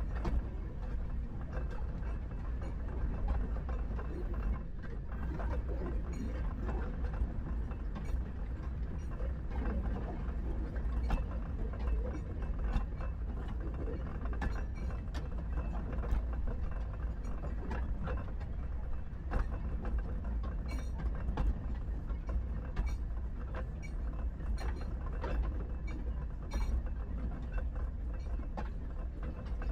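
Three-foot gauge railway train running, with a steady low rumble under irregular clicking and rattling of wheels and running gear.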